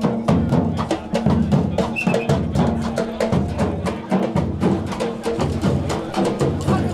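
Percussion music with a steady, busy beat: deep drum strokes and sharp wood-block-like clicks over a repeating low line.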